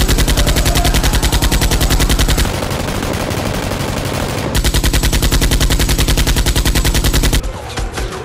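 Rapid automatic machine-gun fire, an action-film gunfire effect. A long loud burst is followed by a lighter, quieter stretch of fire, then a second loud burst that cuts off shortly before the end.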